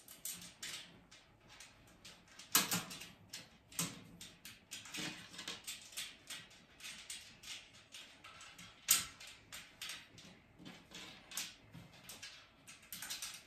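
Irregular clicks, scrapes and knocks of a black metal trolley frame being handled while a pole is worked into place, with sharper knocks about two and a half seconds in and near nine seconds.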